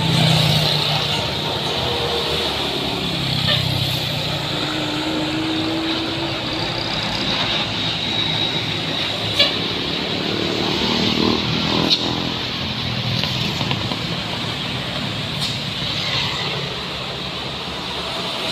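Heavy traffic on a steep hill road: buses and trucks passing with steady engine and tyre noise.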